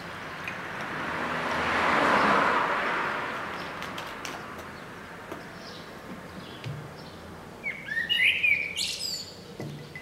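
Male common blackbird singing one phrase near the end: a low fluty warble that breaks into a high twitter. Before it, a broad rushing noise swells and fades, loudest about two seconds in, with faint high chirps throughout.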